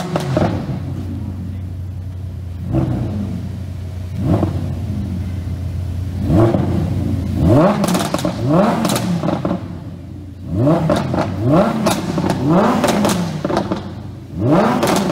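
Lamborghini Huracan LP610-4's 5.2-litre V10, fitted with an aftermarket race exhaust, revved at a standstill. About a dozen sharp throttle blips, each rising and falling in pitch, with idle in between at first. From about eight seconds in they come in quick runs.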